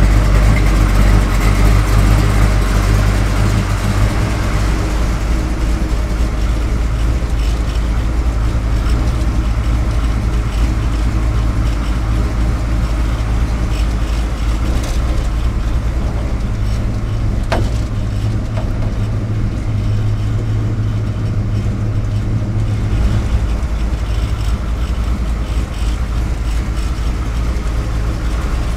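The 383 cubic-inch stroker V8 of a 1971 Chevrolet K5 Blazer idling steadily, a little louder in the first few seconds. There is a single faint click about two-thirds of the way through.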